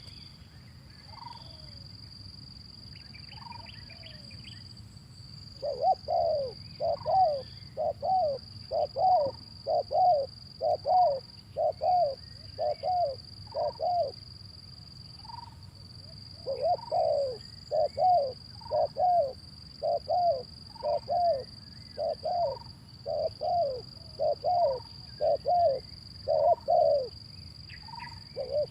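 Spotted dove cooing: long runs of short, low coos, about two a second, starting some seconds in, breaking off briefly midway, then running on. A steady high whine sits underneath, with a few faint higher chirps from another bird.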